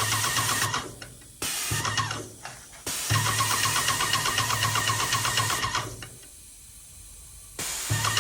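Yokiji 120 airless paint sprayer pump running with a steady hum and rapid ticking of its pump strokes, cutting out and starting again several times, with the longest stop just under two seconds near the end.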